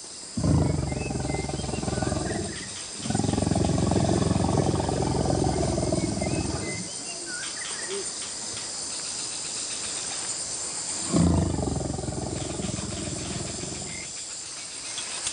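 An Asian elephant rumbling and growling in three long, deep calls: two close together in the first half and a third about eleven seconds in. Insects trill steadily behind.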